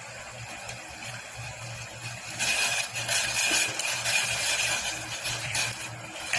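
Sliced onions, tomatoes and ginger being slid from a plate into a stainless steel pot of heating water, over a steady low hum. A louder steady hiss comes in about two and a half seconds in.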